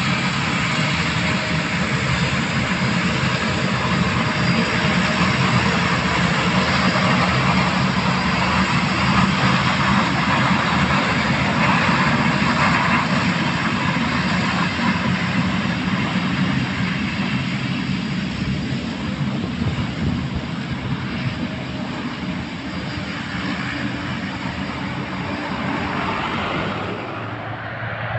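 Twin turboprop engines of a De Havilland Canada Dash 8-400 (Q400) running at high power on the runway, a loud steady propeller drone. The drone grows gradually fainter in the second half as the aircraft moves away.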